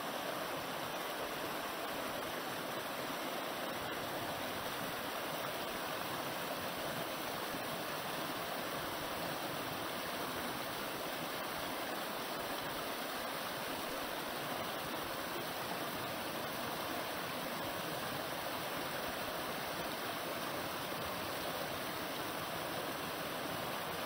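Rocky upland beck running over boulders in small cascades: a steady rush of water.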